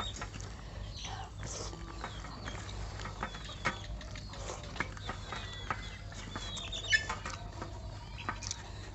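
Eating sounds of someone eating snail curry and rice by hand: short wet clicks and smacks of chewing, with birds chirping now and then in the background.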